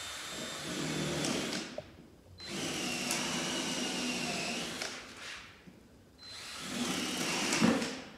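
Power drill boring pilot holes in the wooden boards of a beehive box, in three runs of about two seconds each with short pauses between, the motor whining steadily during each run.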